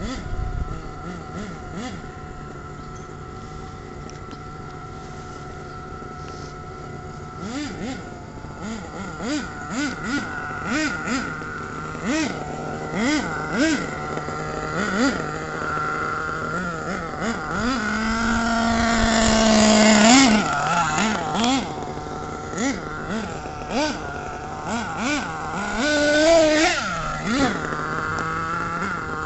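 Radio-controlled truck's motor running in short throttle bursts, then a longer run that rises in pitch to the loudest point about two-thirds of the way through, with another surge near the end.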